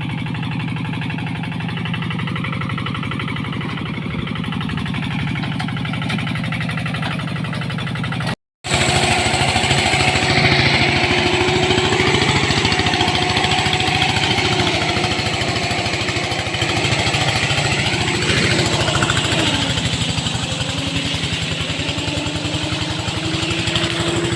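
Tractor engine running steadily. It breaks off briefly about eight seconds in, then comes back louder, with whining tones that rise and fall.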